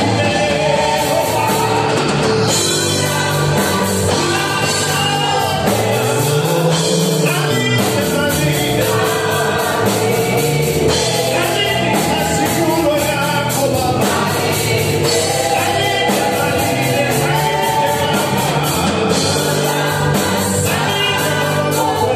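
Live gospel praise-and-worship band: a lead singer and backing vocalists singing together over electric bass and a drum kit keeping a steady beat.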